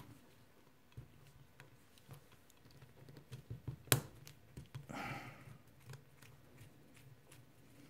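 Faint small clicks and scrapes of a screwdriver turning out a small screw in the metal side bracket of a cassette deck mechanism, with one sharper click about four seconds in and a soft rustle just after.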